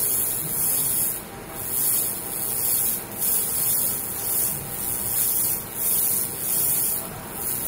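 100 W laser cleaning machine stripping the paint finish off the end of a wooden bar: a loud, high hiss that dips briefly every second or two.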